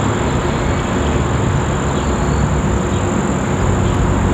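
Distant UH-60 Black Hawk helicopter, its rotor noise a steady low rumble, with a thin steady high-pitched whine over it.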